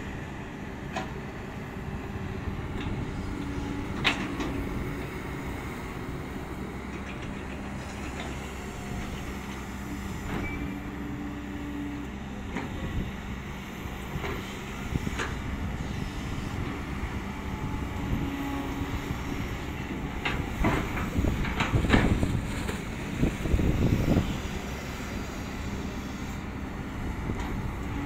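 Kobelco long-reach excavator's diesel engine running steadily while it works its boom and bucket in the bank soil, with scattered short metallic knocks. The machine gets louder and busier about three quarters of the way through.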